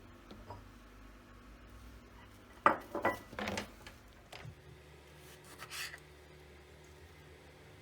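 Kitchenware being handled: one sharp knock, then a short clatter of a few more hits like dishes or utensils being set down, followed by a fainter brushing sound.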